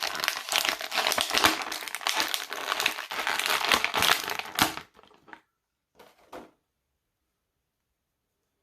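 Plastic and cardboard action-figure packaging crinkling and crackling as it is handled and opened, a dense run of crinkles that stops about five seconds in, followed by two brief rustles.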